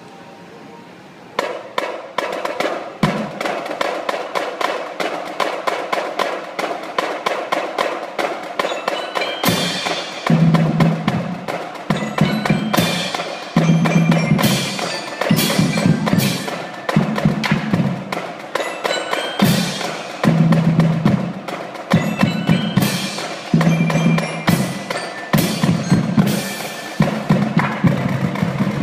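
Drumline playing: snare drums and tenor drums with fast, dense sticking start about a second and a half in. From about ten seconds the bass drums and clash cymbals join on a regular beat, a heavy hit with a cymbal crash roughly every one and a half to two seconds.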